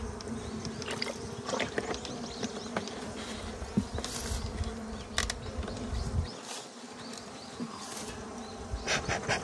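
Swarm of western honeybees buzzing around an open hive, a steady hum, with a few light clicks and knocks from handling near the hive.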